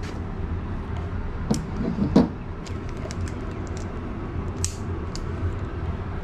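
Scattered light clicks and clinks, like small items being picked up and set down on a sale table, over a steady low rumble.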